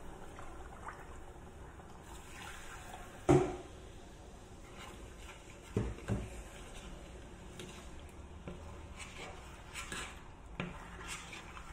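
Milk being poured, then a sharp knock a little over three seconds in, followed by a metal utensil stirring milk into a butter-and-flour roux in a stainless saucepan, knocking and clinking against the pan now and then.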